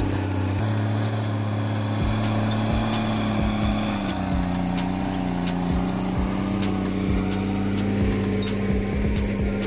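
A heavy machine's engine running steadily, its pitch dropping slightly about four seconds in, with scattered short knocks.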